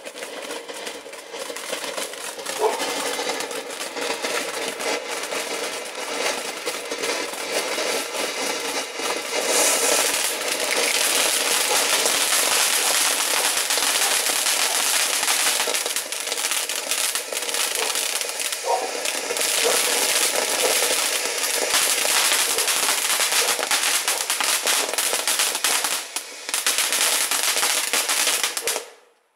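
Bright Star 'Funky Frog' ground fountain firework spraying sparks with a continuous dense hiss and crackle. It grows louder and fuller about ten seconds in and stops abruptly near the end.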